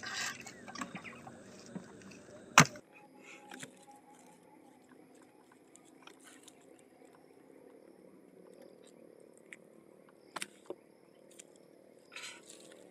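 Fine nylon gill net being handled as fish are picked out of it: faint rustling and small ticks, with one sharp knock a little over two seconds in, two lighter knocks about ten seconds in and a short rustle near the end. A faint steady drone runs underneath.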